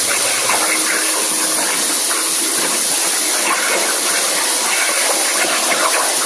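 Hypertherm Powermax 125 plasma arc cutting on a CNC table: a loud, steady hiss of the arc and compressed air with a high-pitched edge.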